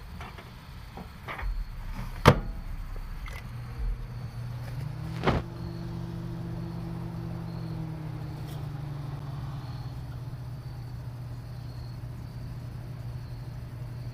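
A few sharp clicks and knocks, then a microwave oven starting up about five seconds in and running with a steady low hum.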